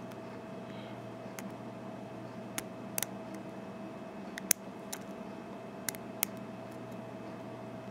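Lock pick and tension wrench working the pin tumblers of an American 5200 series padlock: scattered small metallic clicks at irregular intervals, the sharpest about halfway through. A steady low hum underlies it.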